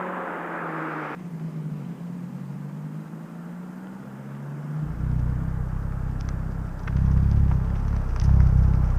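Honda Civic Type R FK8's turbocharged four-cylinder exhaust, through a downpipe and the stock cat-back, running at a low steady note, then from about five seconds in swelling into a loud deep rumble. Scattered sharp crackles ride over it in the second half, the pops of the Hondata pops-and-bangs tune.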